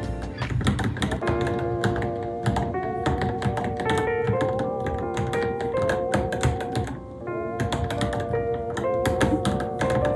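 Rapid, irregular key clicks of typing on a Varmilo Minilo mechanical keyboard, over background music with a melody.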